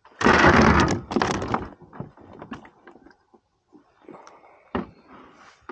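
Handling noise on a plastic pedal fishing kayak: two loud scraping rushes in the first second and a half, then scattered light knocks and clicks as gear is moved about on the deck.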